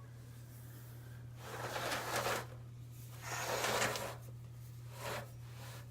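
Rustling and scraping handling noise as a plastic box fan is moved and turned around, in two longer bursts and a short one near the end, over a steady low hum.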